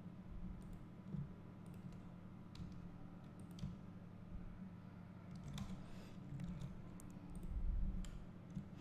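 Scattered faint clicks of a computer keyboard and mouse being used, over a low steady hum.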